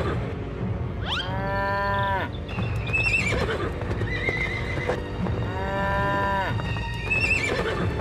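Two drawn-out farm animal calls, about a second each, the pitch rising and then falling, over light background music.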